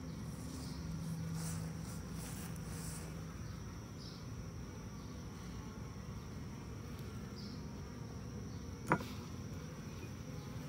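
Honey bees from an open hive buzzing in a steady hum, the colony agitated and defensive. A single sharp click sounds about nine seconds in.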